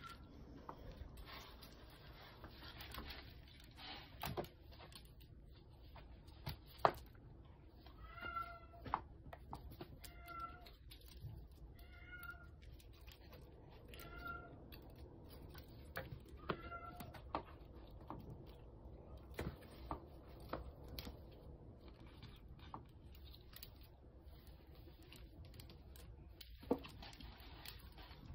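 A kitten meowing in a run of about six short, high calls through the middle, with scattered light taps and knocks around it.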